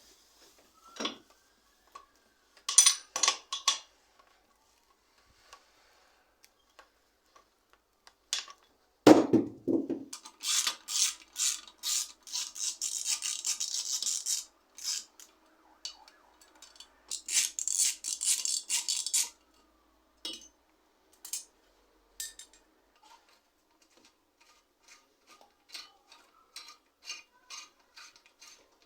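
Hands-on workshop work on a mountain bike's parts: scattered metal clinks and taps, one heavy thump about nine seconds in, and two runs of rapid repeated strokes a few seconds each.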